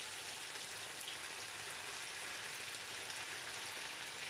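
Saltfish and vegetables frying in a pan, giving a steady, even sizzle.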